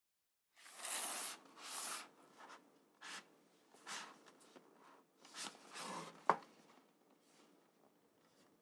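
Faint handling of a gaming mousepad's packaging: a series of short rubbing and sliding sounds with gaps between them, and one sharp click a little after six seconds.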